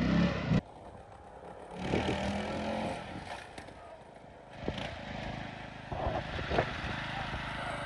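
Riding lawn mower's small engine running as it drives over a dirt field, heard in short stretches that break off abruptly, with a few sharp knocks.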